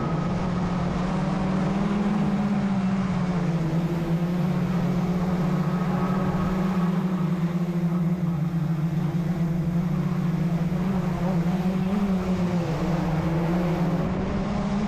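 FPV racing quadcopter's brushless motors and propellers whining steadily, the pitch drifting up and down a little with throttle, as heard by the onboard camera.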